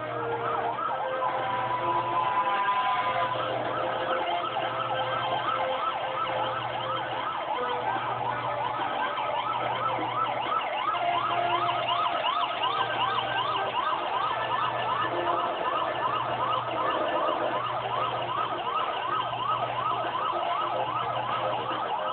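Several fire-engine sirens sounding together: a slow wail at first, then fast overlapping yelping sweeps from about four seconds in, over a low hum that pulses about once a second.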